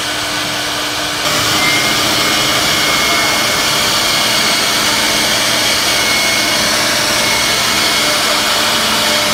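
CNC router spindle running and its bit cutting into a wooden door panel, a steady loud whir and hiss of cutting that steps up in level about a second in.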